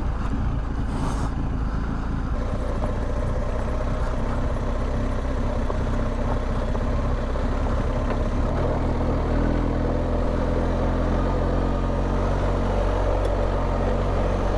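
BMW R1250GS boxer-twin engine running steadily under way as a continuous low drone, its note shifting slightly about eight seconds in.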